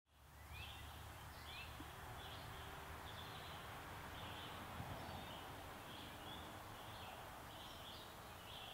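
Faint woodland ambience: a steady low rumble and hiss with birds chirping over and over, fading in at the start.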